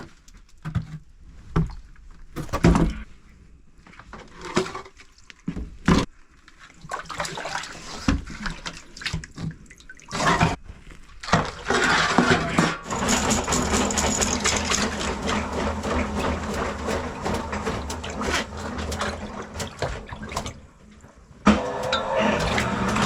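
Drain-cleaning work on a clogged sewer line: knocks and metal clatter, then about halfway in a steady motor starts running under a wash of water, dropping out briefly near the end.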